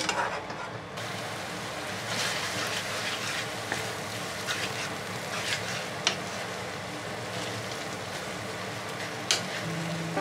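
Spaghetti and tomato sauce sizzling in a hot frying pan while being stirred and tossed with a wooden spatula, with a few sharp clicks and scrapes of the spatula against the pan.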